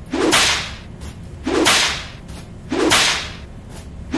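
Long wet hair being whipped back and forth through the air: three evenly spaced swishes a little over a second apart, with a fourth starting right at the end.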